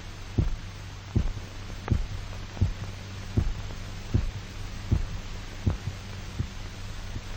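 Slow, even thumps, about four every three seconds, like a heartbeat, over a steady low hum.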